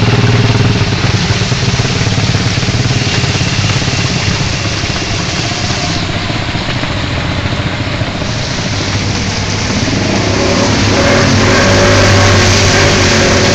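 Vehicle engine running, heard from inside the cabin, under a steady hiss of heavy rain and water on the flooded road. About ten seconds in the engine note rises and gets louder as the vehicle speeds up.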